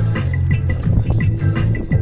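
Background music with a deep bass line and a steady ticking beat.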